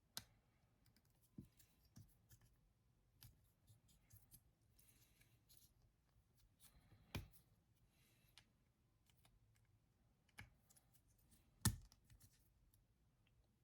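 Faint, scattered clicks and taps of small model-kit parts being handled and fitted together, with two sharper clicks about seven seconds and about twelve seconds in.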